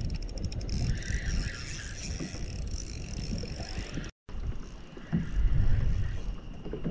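Spinning reel being cranked by hand, its gears whirring and ticking as line is wound in. After a brief break about four seconds in, wind noise and water take over.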